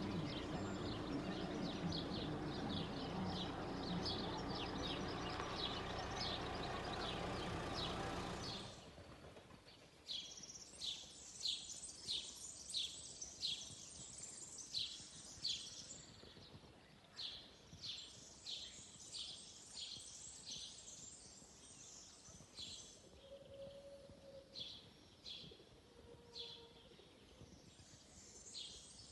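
Small birds chirping in series of short, high notes, about two a second, over a quiet background. For the first eight seconds or so a steady noise sits under the chirps, then drops away at a cut, leaving the chirps clearer.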